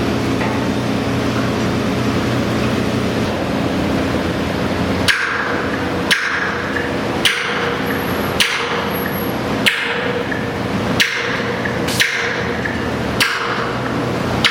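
Construction hammering: after about five seconds of steady low machine hum, eight sharp, ringing hammer blows land roughly once a second.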